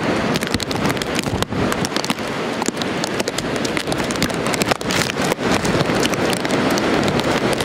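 Strong hurricane wind buffeting the microphone over the steady rush of heavy surf, with frequent short pops from the gusts.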